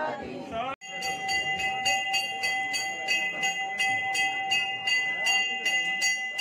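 Temple bell rung rapidly and without pause, about three to four strikes a second, its ringing tone held steady under the strikes. It starts after a short break about a second in.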